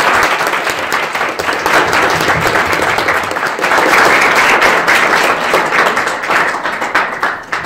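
Audience applauding: many hands clapping together in a dense, steady patter that dies away near the end.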